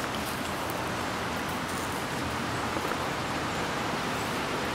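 Steady hiss of falling wet snow, with faint scattered ticks of drops landing.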